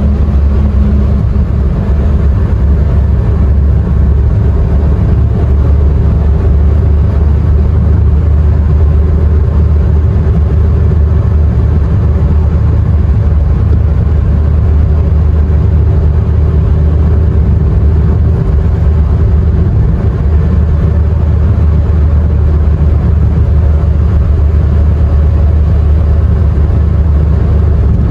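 A car driving steadily: a constant low rumble of engine and road noise that keeps an even level throughout.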